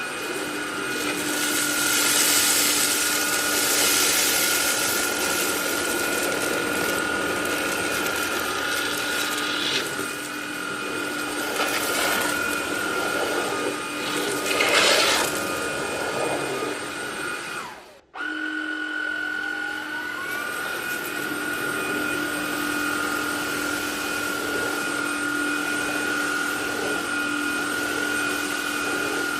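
SilverCrest SHAZ 20 A1 20 V cordless cyclonic vacuum motor running with a steady whine and rush of air, with brief surges of louder airflow. It is switched off about 18 seconds in and at once started again, its pitch rising as the motor spins up.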